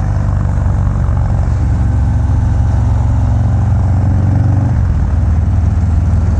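Harley-Davidson FXDR's big-bore Milwaukee-Eight V-twin, bored to 117 cubic inches, running loud through a Bassani Road Rage exhaust while riding. The engine holds a steady note, which changes about five seconds in.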